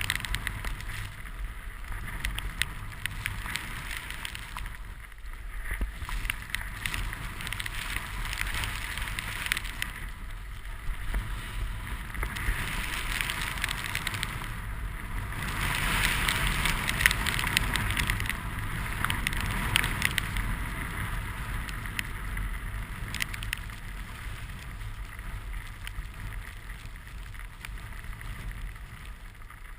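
Snowboard sliding and carving through snow: a continuous scraping rush that swells and eases with each turn, loudest about two-thirds of the way through, with wind rumbling on the action-camera microphone.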